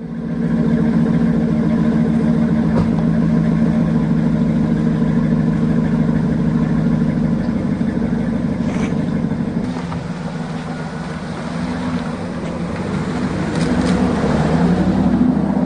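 A large SUV's engine running steadily at idle close by, swelling louder for a couple of seconds near the end.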